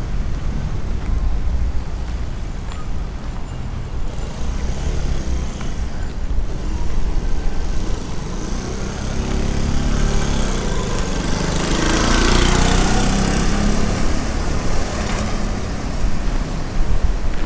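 Wind buffeting the microphone with a steady low rumble, and a small engine running over it, its pitch rising and falling, loudest about two-thirds of the way through.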